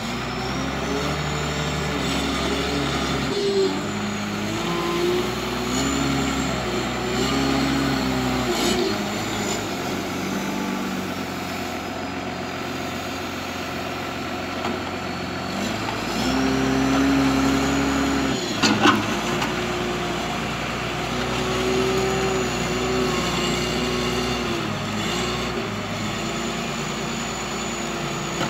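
Komatsu WA320 wheel loader's diesel engine running and revving as it works the beet pile, with a high whine that climbs and falls as the revs rise. One sharp knock is loudest about two-thirds of the way through.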